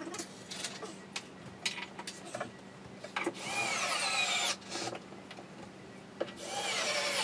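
Power drill-driver running in two bursts of just over a second each, about three and six seconds in, its whine falling in pitch as it drives screws into the chipboard furniture panels. Light knocks and clicks of panels being handled in between.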